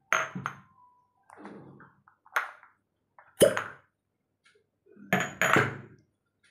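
Glass cupping cups knocking and clinking against one another as they are handled on the skin. There are about five sharp strikes, one with a brief ringing ping.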